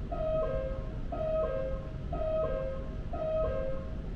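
Metro door-closing warning chime: a two-note high-then-low tone repeated about once a second, four times, stopping near the end, over the low rumble of the train.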